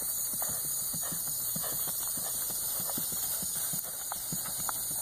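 Hoofbeats of a Tennessee Walking Horse mare gaiting under a rider on grass: a quick, continuous run of knocks, several a second, over a steady high-pitched hiss.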